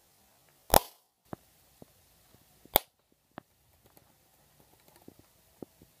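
An inflated rubber balloon on a pipe-and-balloon bird trap bursting: two loud, sharp bangs about two seconds apart, followed by a few faint scattered taps.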